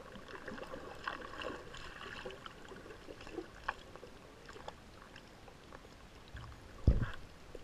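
Muffled underwater ambience from a camera held below the surface in shallow sea: water noise with many small scattered clicks and crackles, and one loud low thump about seven seconds in.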